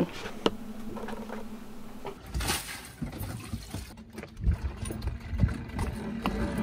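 A steady low hum with a click for about two seconds, then water lapping and wind gusting around an inflatable dinghy, with a few knocks and rattles as its outboard motor is handled.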